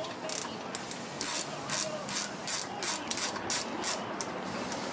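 Hand ratchet loosening a rear brake caliper bolt, swung back and forth in quick strokes with the pawl clicking, about three strokes a second.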